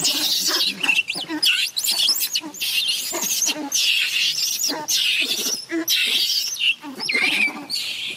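Macaque monkeys screaming: a rapid, continuous run of loud, high-pitched shrieks and squeals that swoop up and down in pitch, with brief gaps between calls.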